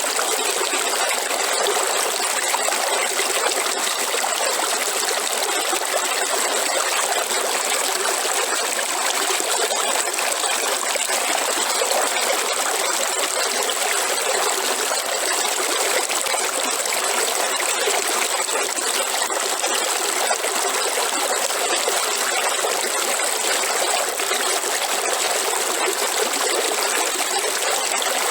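River water flowing steadily, a continuous rushing and trickling with no breaks, with a faint steady high-pitched tone above it.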